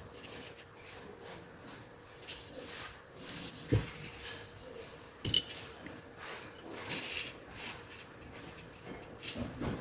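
Light clicks and taps of small tools and component leads being handled on a tabletop while a resistor is soldered to a trimpot held in a binder clip, with two sharper knocks a little under four seconds and a little over five seconds in.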